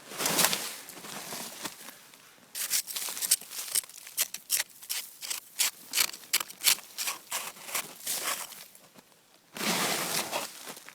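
Crunching and brushing of snow. A rushing scrape at the start, then a run of short, uneven crunches about two a second, then another rushing scrape near the end.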